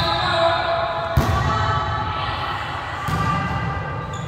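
A single sharp, echoing thud of a volleyball striking about a second in, over background chatter in a hall.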